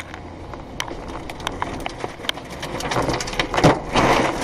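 Storm-driven rain and flying debris pelting a car, heard from inside the cabin: many sharp hits over a rushing noise that grows louder and peaks near the end.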